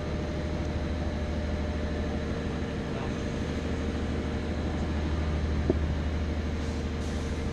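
Boat engine running steadily with a low, even hum and a faint constant whine. A single light knock about three-quarters of the way through.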